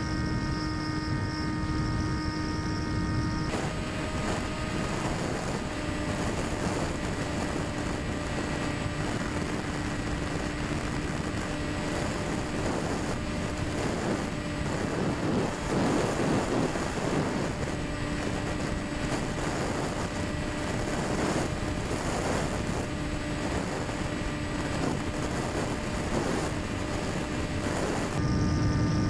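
Electric motor and propeller of a Quanum Observer FPV model plane running steadily in flight, heard from onboard with wind rushing over the microphone. The sound changes abruptly about three seconds in and again near the end.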